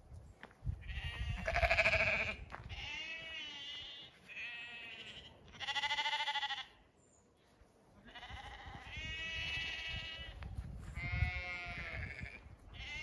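Zwartbles sheep bleating, about seven calls one after another at different pitches, with a short pause about two-thirds of the way through.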